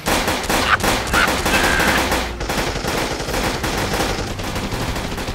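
Rapid machine-gun fire added as a sound effect: a dense, unbroken string of shots.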